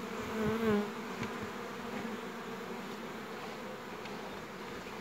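Honeybees buzzing in a steady hum from an open hive under inspection, a little louder for a moment in the first second.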